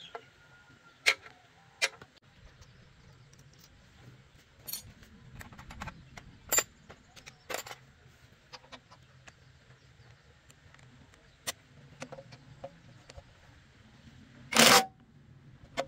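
Steel wrenches clinking and tapping against a walk-behind tractor's engine: a scatter of separate sharp metallic clicks. Near the end, a Makita cordless impact wrench gives one short, loud burst on a bolt.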